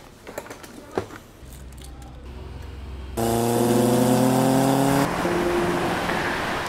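A few sharp clicks from handling a scooter, then a low engine hum. About three seconds in a louder engine cuts in, revving with slowly rising pitch. Near five seconds it gives way to a rushing noise.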